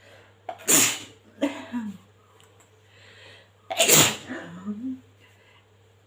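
A woman sneezing twice, about three seconds apart, each sneeze followed by a brief voiced sound. The sneezes are brought on by sniffing spice powder up her nose.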